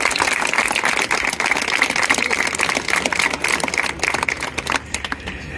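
A group of people clapping together: dense, uneven applause that thins out about five seconds in.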